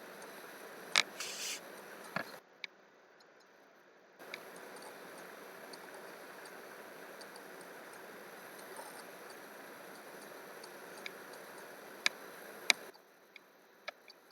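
A few sharp clicks from working at a computer keyboard and mouse, the loudest about a second in and another pair near the end, over a faint steady hiss that cuts out briefly.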